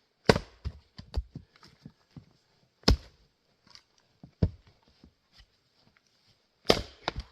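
Axe strikes splitting Grand Fir firewood: four sharp wooden knocks a couple of seconds apart, with lighter knocks and clatters between them.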